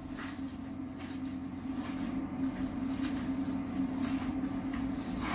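A steady low hum, with soft squishing as gloved hands knead minced meat and brocciu stuffing in a glass bowl.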